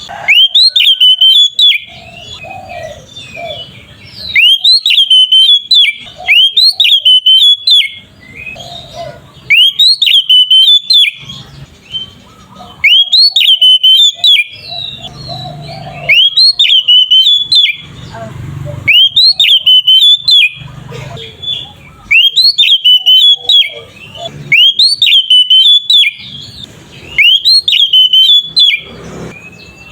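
Oriental magpie-robin (kacer) singing loud, clear whistled phrases. Each phrase is a quick run of rising and falling notes about a second long, repeated roughly every two seconds.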